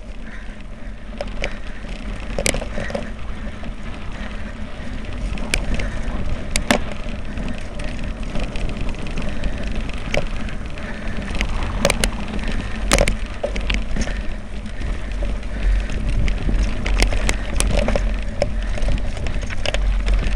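Mountain bike rolling fast down a rough dirt and stone track: a steady low rumble of wind on the bike-mounted camera's microphone under the hiss of the tyres, with irregular sharp knocks and rattles as the bike jolts over bumps.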